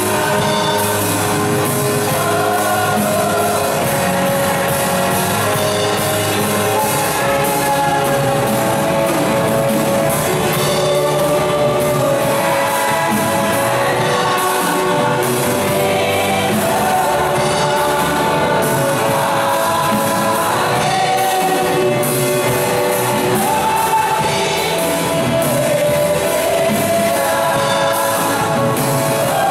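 A women's church choir singing a gospel song through microphones, one voice leading with the others singing along, over a steady low bass accompaniment.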